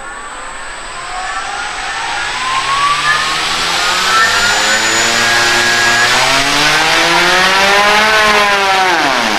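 Scorpion electric motor spinning a large wooden propeller, run from a servo tester. Its whine rises steadily over a loud rush of prop wash, then drops quickly near the end as it is throttled back.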